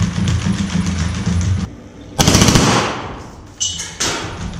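A low steady hum, then about two seconds in a loud burst of rapid automatic fire from the rifle mounted on the robot dog, dying away over about a second, and a second shorter burst near the end.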